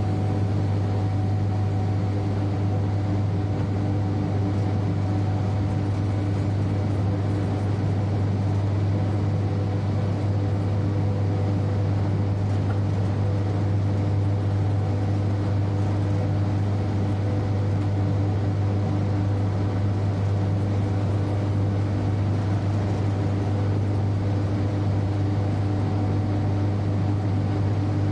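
Steady running sound of a train heard from its front cab: a strong low hum with a few fainter steady tones over an even rolling noise, unchanging in level.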